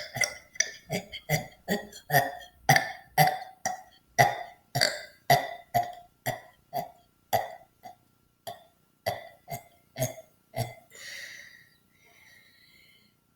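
A person burping on command in a rapid unbroken run of short burps, two or three a second, spacing out a little toward the end. About eleven seconds in the burps stop and a breathy exhale follows.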